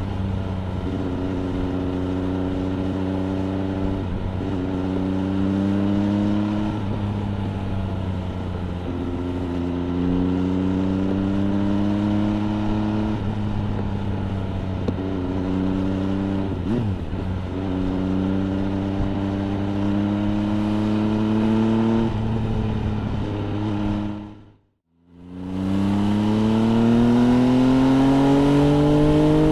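MV Agusta Brutale 800 RR's three-cylinder engine, breathing through an FF by Fresco aftermarket exhaust, pulling through the gears. The pitch climbs steadily in each gear and falls back at each upshift every few seconds. Near the end the sound cuts out completely for about a second, then the engine climbs again with rising pitch.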